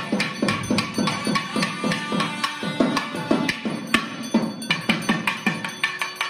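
Thavil drums played in a fast, steady rhythm of about three to four sharp strokes a second.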